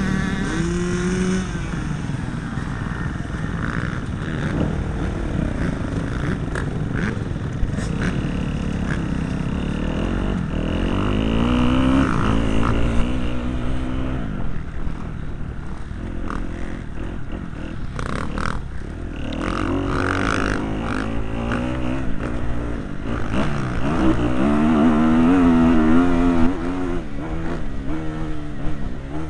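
Motocross bike engine heard from a helmet camera while riding, revving up and falling back again and again as the throttle opens and closes, loudest in two long pulls.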